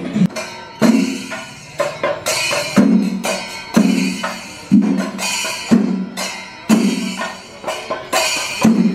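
Chenda drum ensemble playing a steady rhythm: a heavy stroke about once a second with lighter, faster strokes in between.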